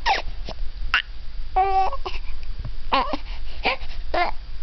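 Young infant cooing: a string of short vocal sounds, one of them held steady for about half a second a little under two seconds in.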